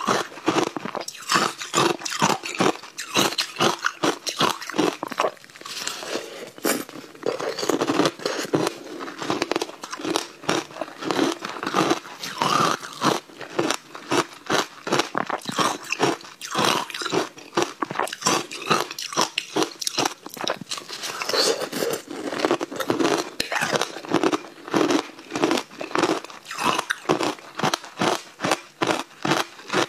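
Hard ice being bitten and crunched between the teeth: dense rapid crunches, several a second, with brief softer spells of chewing.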